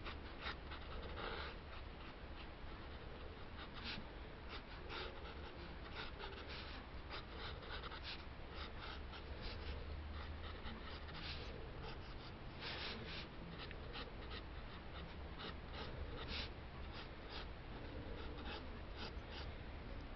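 Mechanical pencil lead scratching across paper in short, irregular sketching strokes, over a faint low hum.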